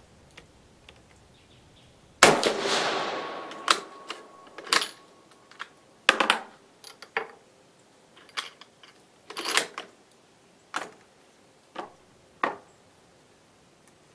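A rifle shot from a Carcano cavalry carbine converted to 8mm, firing a light cast-bullet load, about two seconds in, with a long ringing echo. It is followed by a run of sharper metallic clicks and clacks, the bolt being worked to eject the case and load the next round by hand through the single-shot block.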